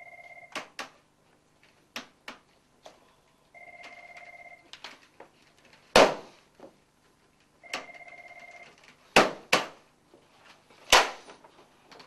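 An electronic telephone ringing, short rings about four seconds apart, among a string of sharp clicks and knocks; the loudest bangs come about six seconds in and three more in the last few seconds.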